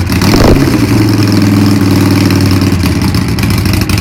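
Harley-Davidson Nightster's 1200 cc air-cooled V-twin running loud through newly fitted exhausts. It is blipped once right at the start, the pitch rising and falling back, then settles into a steady idle.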